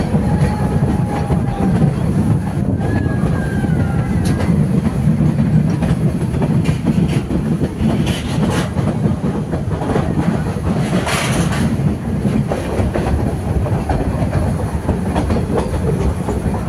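A heritage train running, heard from aboard: a steady rumble with the wheels clattering over the rails. A few brief high squeals come from the wheels in the first few seconds.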